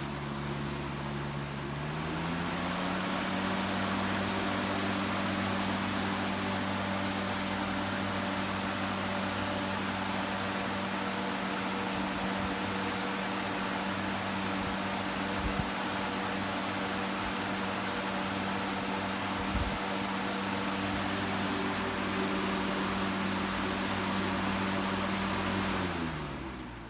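Lasko 3733 box fan running: a steady motor hum under the whoosh of the blades. About two seconds in, the hum rises in pitch as the motor speeds up. Near the end it drops in pitch and fades as the fan winds down.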